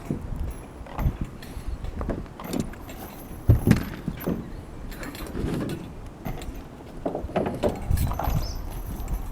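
Roofing work on a standing-seam metal roof: irregular knocks, taps and clanks, with a sharper pair of hits about three and a half seconds in.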